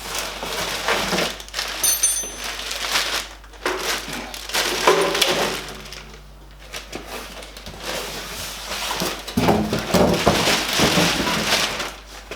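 Rustling and crinkling of packaging with scattered knocks, as a MIG welder is taken out of its cardboard box.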